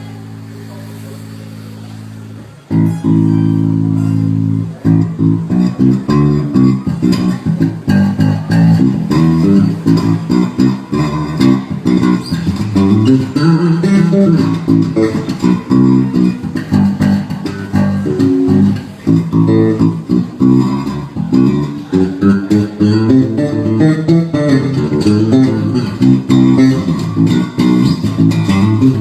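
Electric bass guitar played solo: a low held note rings and fades for the first couple of seconds, then a fast, busy run of plucked notes starts about two and a half seconds in and carries on.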